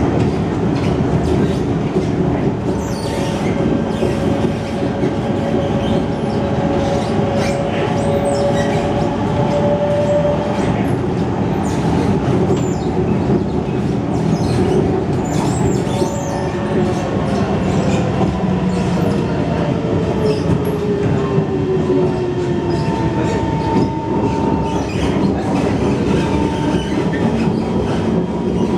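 Singapore MRT train running, heard from inside the carriage: a steady loud rumble of wheels on rail with some rhythmic clacking. High whining tones come and go, one slowly falling in pitch about two-thirds of the way through.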